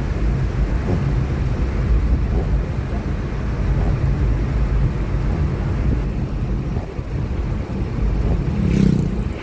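Steady road and engine noise inside a moving car's cabin at cruising speed, with a short swish near the end.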